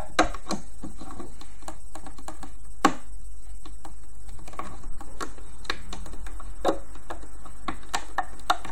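Irregular light clicks and taps of a loom hook against the plastic pegs and rubber bands of a rubber-band loom as bands are looped over, over a low steady hum.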